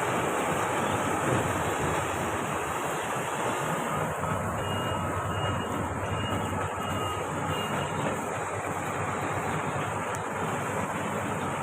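Marksan K-Bos MS-1200 combine harvester running steadily, its engine and threshing gear making an even mechanical noise. A faint, short, repeated high beep sounds for a few seconds midway.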